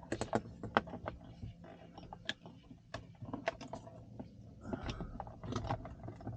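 Hard plastic trim pieces of a rear-view mirror cover being handled and fitted back together, making irregular clicks and taps.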